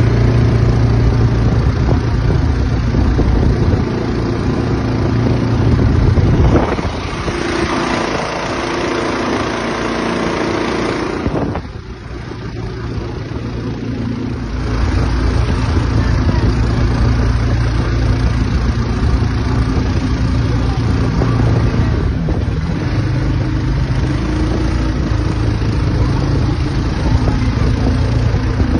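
15 hp Mud-Skipper surface-drive mud motor, a four-stroke small engine, running steadily while pushing a jon boat. Its note changes about six seconds in and dips briefly about twelve seconds in, then runs steady again.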